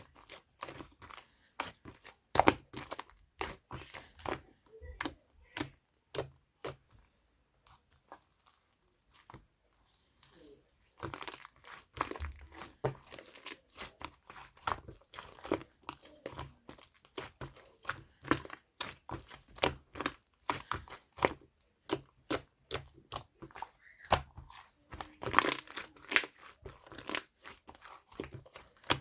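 Slime being squeezed and kneaded by hand, making many irregular sharp pops and crackles as air pockets burst. It goes nearly quiet for a few seconds about a quarter of the way in.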